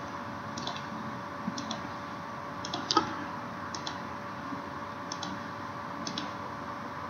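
Computer mouse button clicks, about seven short double ticks spaced roughly a second apart, over a steady faint electrical hum.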